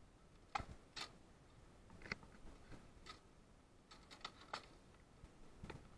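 Steel sidesword blades clashing in sparring: a series of sharp, light clinks, single strikes at first and a quick run of three or four together around four seconds in, then one more near the end.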